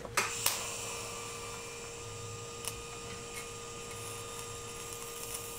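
Electric arc welding on the steel tubes of a tube front-end frame. It strikes with a couple of sharp crackles just after the start, then keeps up a steady hiss and buzz. Afterwards the welder puts the poor weld down to paint he had not cleaned off the steel.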